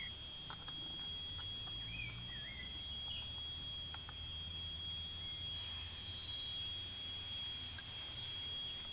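Steady high-pitched drone of forest insects, with a bird's short chirps a few times in the first three seconds. A few light clicks as a small gas canister stove is handled, and a faint hiss for about three seconds from about five and a half seconds in.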